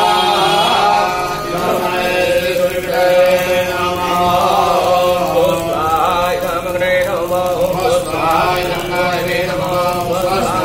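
Hindu priests chanting Sanskrit mantras in a continuous, unbroken recitation.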